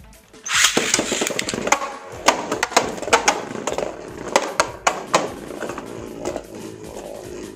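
A Beyblade spinning top is fired from its launcher into a clear plastic stadium, with a sudden rip about half a second in. It then spins with a steady rattle and many sharp clicks as it knocks against the stadium wall, and the sound slowly eases off.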